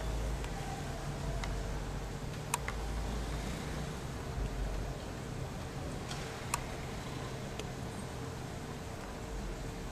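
Steady low rumble of distant city traffic with a faint constant hum, broken by a few short sharp clicks, the loudest about two and a half seconds in and again at about six and a half seconds.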